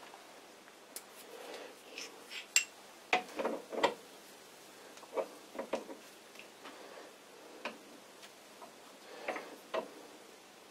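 Small steel parts of an old bench lathe's tailstock clicking and clinking as they are handled and fitted onto the tailstock screw shaft by hand: a string of irregular light taps and clicks, with brief bits of metal rubbing on metal.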